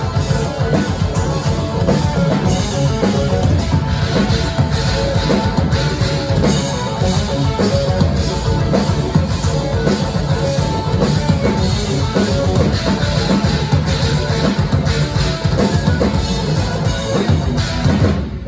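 Live instrumental progressive metal band playing: distorted electric guitars, bass guitar and a busy drum kit, loud and dense. The music stops abruptly at the very end.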